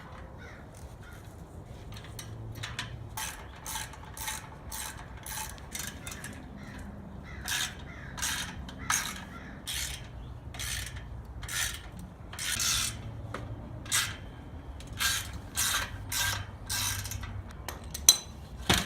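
Hand socket ratchet clicking in short, uneven strokes while backing out the bolts holding the clutch to an LS1 engine's flywheel. A single sharp metallic clank near the end.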